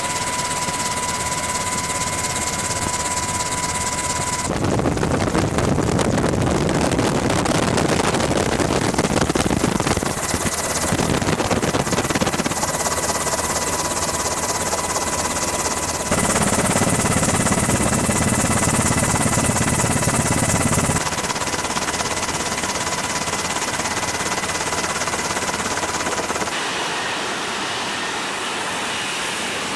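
Military jet and helicopter turbine engines running on a ship's flight deck: a dense, steady rush of engine noise with high whining tones. The sound changes abruptly several times as one clip gives way to the next.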